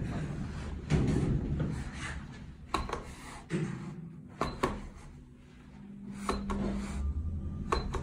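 Inside an Otis elevator car: a handful of sharp clicks and knocks with rubbing noise over a low rumble, and a brief steady hum about six seconds in.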